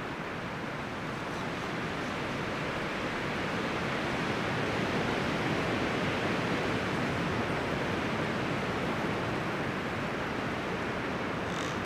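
Steady rushing noise with no distinct pitch, swelling slightly in the middle, with a brief faint high sound near the end.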